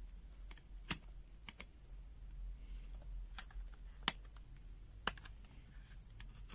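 A few sharp, irregular clicks and taps, the loudest about four and five seconds in, over a steady low hum.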